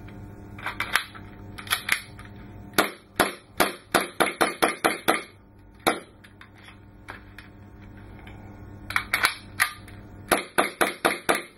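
WE Dragon Hi-Capa gas blowback airsoft pistol being fired: sharp cracks in quick strings, each shot with the metal slide snapping back. There is a fast run of about ten shots in the middle, a pause of a few seconds, then two more quick strings near the end.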